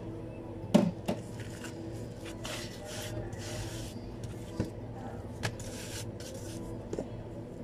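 Sushi prep handling at a cutting board: a sharp clack of a tray or lid set down about a second in, then rubbing and rustling of a plastic-wrapped bamboo rolling mat and gloved hands, with a few lighter knocks. A steady low hum runs underneath.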